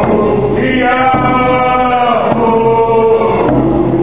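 Group of Nisga'a dancers chanting a traditional song in unison, holding long notes that step down in pitch.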